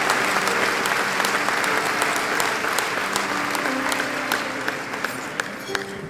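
Large audience applauding, the clapping thinning and fading toward the end.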